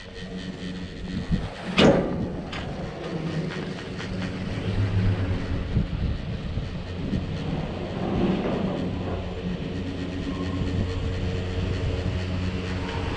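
Chairlift running, a steady mechanical hum of the haul rope and sheaves, with a sharp clack about two seconds in as the chair passes over a lift tower. The hum grows louder near the end as the chair nears the top terminal.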